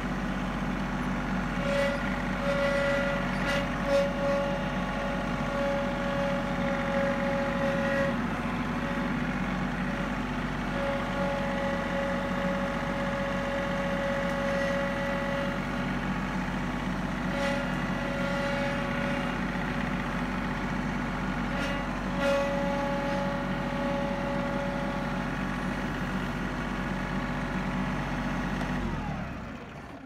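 John Deere 3032E compact tractor's diesel engine running steadily, with a high whine that comes and goes over it several times; this whine is the abnormal noise. The sound falls away near the end.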